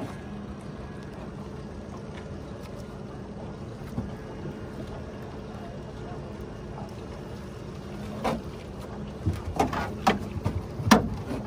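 Boat motor running with a steady low hum while trolling. Several sharp knocks come in the last few seconds.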